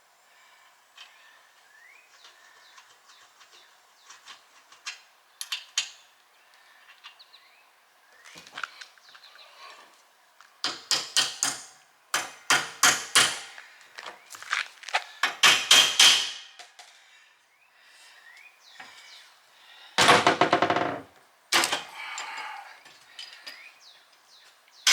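Hand-tool work on a metal yard cart: bursts of quick sharp taps and knocks, several strikes a second, with one louder rattling clatter near the end.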